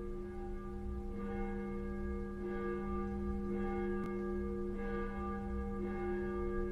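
Church bell tolled as the papklok, the traditional Dutch 'pap bell': one bell striking steadily about once every 1.2 seconds, each stroke ringing on into the next.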